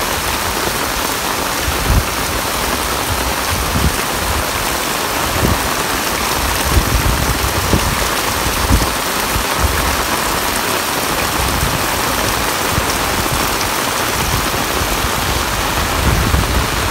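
Heavy rain pouring onto a concrete lane and plants, a dense steady hiss, with irregular low rumbles underneath.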